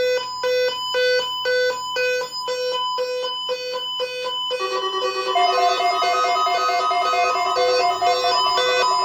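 Weather alert radio sounding its alarm: a pulsed electronic beep about twice a second. About four and a half seconds in, more alert radios join with beeps and steady tones of several pitches, making a dense overlapping chorus of alarms, set off by a required monthly test.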